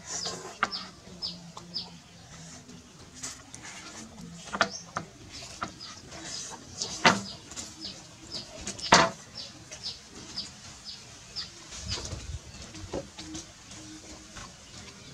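A metal spoon clinking against a ceramic noodle bowl a few times, loudest about seven and nine seconds in. Behind it a short high chirp repeats about twice a second.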